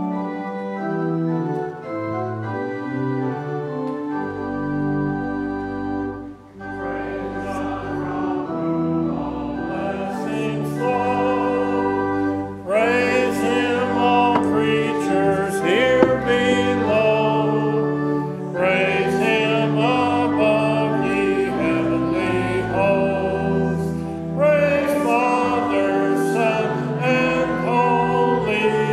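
Pipe organ playing a hymn: sustained chords, with deep pedal bass entering about four seconds in, then voices join singing with the organ from about twelve seconds in, in phrases with short breaths between them.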